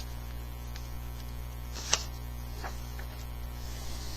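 Steady low electrical hum, with a single short click about two seconds in and a faint rustle near the end.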